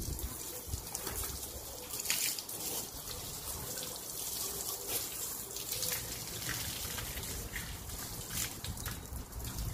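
Water running from a garden hose, trickling and splashing onto wet tile.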